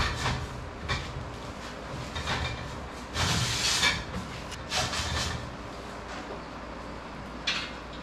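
Steel parts being handled on a welded square-tube steel frame: a scrape of metal on metal about three seconds in, a shorter scrape a second later, and a sharp click near the end.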